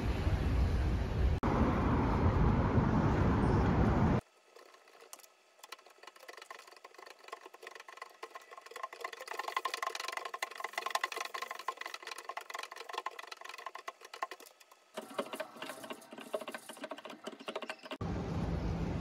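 Outdoor street noise, a steady bass-heavy rumble, for the first four seconds. It cuts to a quiet room filled with rapid, irregular clicking of keyboard keys being typed on for about ten seconds. The street noise returns near the end.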